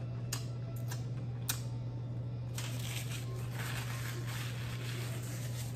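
Paper napkin rustling and crinkling in the hands from about two and a half seconds in, after a few soft clicks. A steady low hum runs underneath.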